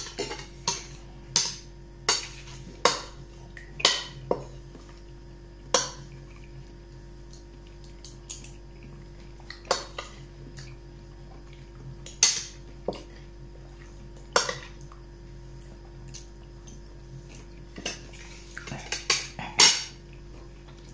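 Metal spoon clinking and scraping against a glass dish while eating: irregular sharp clinks, with a quick run of them near the end.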